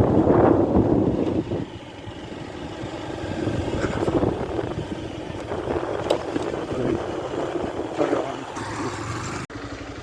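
Vehicle driving on a rough dirt road: engine and road noise with scattered knocks and rattles. The sound changes abruptly at an edit near the end.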